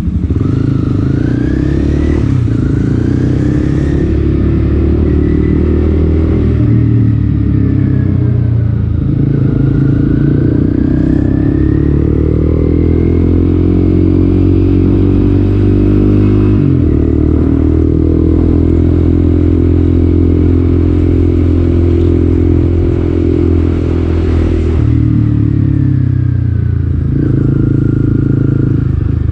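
Motorcycle engine running under way, its note rising and falling with throttle and gear changes several times, including a sharp dip about seventeen seconds in.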